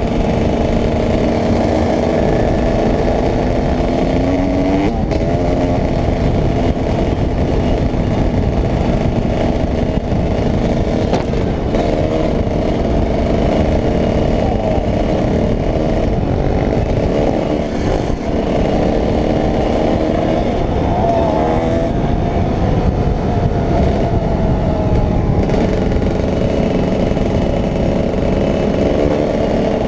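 Dirt bike engine running steadily at cruising speed, its note rising and falling briefly a couple of times, with wind noise on a helmet-mounted microphone.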